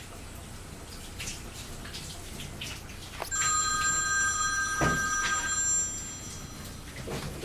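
A bell-like chime starts suddenly a little over three seconds in and rings with several steady pitches for about two and a half seconds before dying away, with a soft thump in the middle of it.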